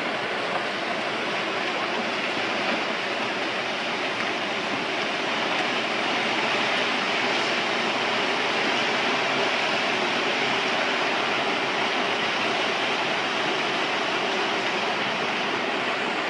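Landslide: a steady rushing noise of rock and earth pouring down a hillside. It grows a little louder about six seconds in.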